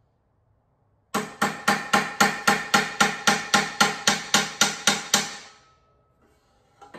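Hand hammer peening a rivet on a copper pan's handle, the pan held over a metal stake: about sixteen quick, evenly paced ringing metal strikes, about four a second, then a brief clatter near the end.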